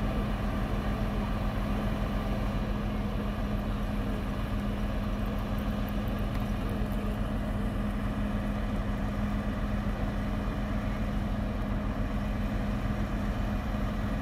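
Crane truck's diesel engine running at a steady speed to drive the knuckle-boom crane's hydraulics, giving a constant low hum that does not change.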